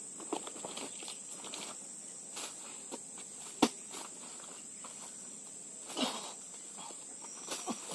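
Oil palm fruit bunches thudding as they are speared and thrown up into a pickup's cargo bed: a few sharp thumps, the loudest about three and a half seconds in, another about six seconds in. Under them, a steady high-pitched drone of insects.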